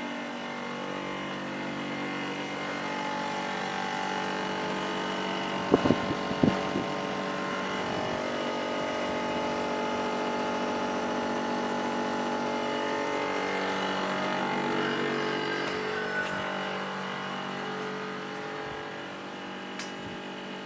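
LESSAR LS/LU-H12KKA2 split air conditioner humming: a steady, many-toned drone whose pitch drifts slowly up and down, which the owner presents as an unwanted hum. A few sharp clicks sound about six seconds in.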